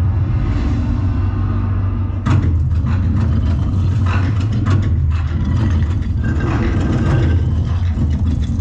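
Deep, steady rumble of an open-air show soundtrack over loudspeakers, with a few sharp hits about two, four and nearly five seconds in.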